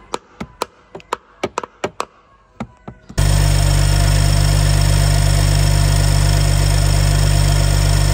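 A dozen sharp, irregular taps, then from about three seconds in the BMW N55 turbocharged straight-six engine idling steadily.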